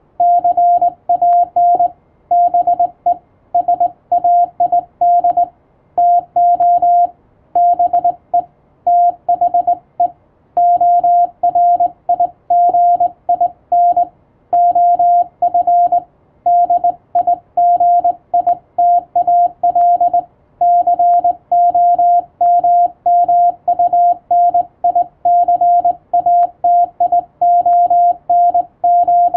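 Morse code (CW) tone from an amateur radio set, a single steady mid-pitched beep keyed on and off in dots and dashes, grouped into characters with short pauses between them.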